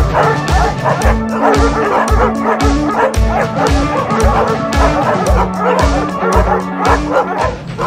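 Background music with a steady beat of about two thumps a second, laid over hunting hounds barking and yelping while they search for a wild boar.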